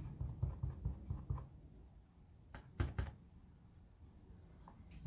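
Rubber stamp on a clear acrylic block being dabbed onto an ink pad: a quick run of soft taps, then two sharper clicks about three seconds in.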